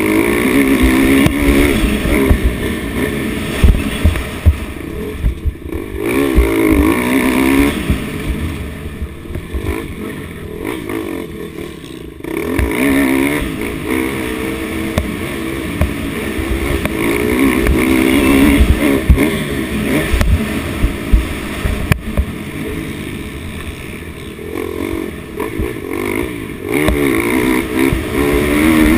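Dirt bike engine revving up and dropping back over and over as it is ridden hard around a motocross track, with frequent low knocks from the rough ground.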